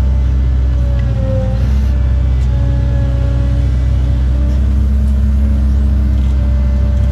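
Cat 309 excavator's diesel engine and hydraulics heard from inside the cab, running steadily under load while the machine digs, swings and loads a dump truck. A whine rides on top and shifts in pitch a few times as the controls are worked.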